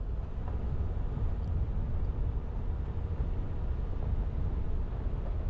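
Van driving slowly over a rough dirt road: a steady low rumble of tyres and engine.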